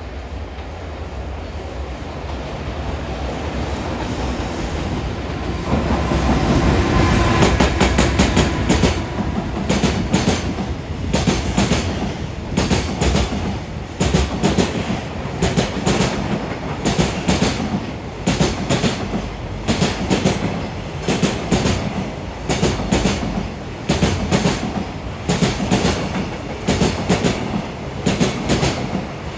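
JR Freight EF210 electric locomotive approaching and running past, loudest about six to eight seconds in, followed by a long string of Koki container wagons whose wheels clatter over the rail joints in evenly repeating groups of clicks, about one group every second or so.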